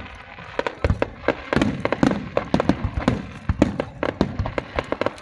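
Fireworks going off in a rapid barrage: many sharp cracks and pops, several a second, mixed with deeper booms.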